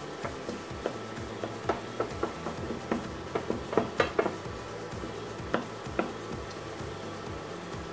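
Wooden spoon stirring diced carrots and onions frying in a nonstick pan: irregular knocks and scrapes of the spoon against the pan, several a second, over a light sizzle.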